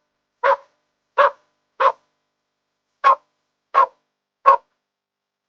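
Dog barking: six short barks, three in quick succession, a brief pause, then three more.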